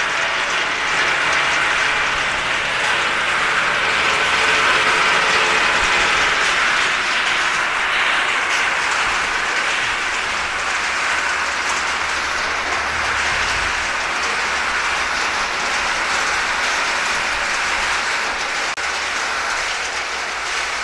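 In-shell walnuts rattling and tumbling inside the rotating perforated steel drum of a walnut sizing machine, a dense, steady clatter as the nuts are graded by size and drop through onto the metal sorting trays.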